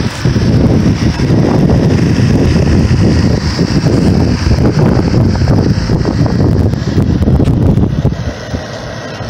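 Wind buffeting the microphone in gusts, over the steady running of a refrigerant recovery machine (a G5 Twin) pulling refrigerant out of the old condenser. The wind noise eases about eight seconds in.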